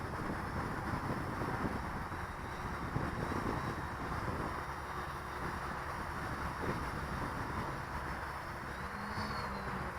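Gusty wind buffeting the microphone over the steady whir of a quadcopter's motors and propellers.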